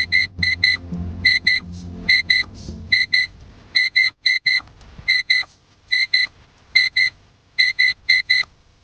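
Portable carbon monoxide detector's alarm sounding: a high-pitched electronic beep repeated in quick clusters about once a second. It signals that the carbon monoxide concentration has passed 50 ppm.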